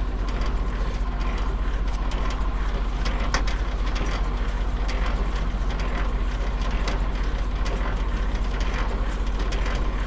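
Semi-trailer landing gear being cranked up by hand: the crank and gearbox click and rattle steadily with each turn, over a steady low drone.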